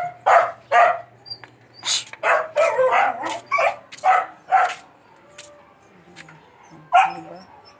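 A dog barking: a quick run of about ten short barks, then a pause and one more bark near the end.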